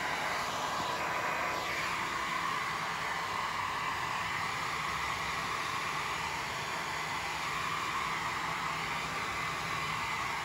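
Handheld electric hair dryer running steadily, its fan blowing air in an even rushing hiss.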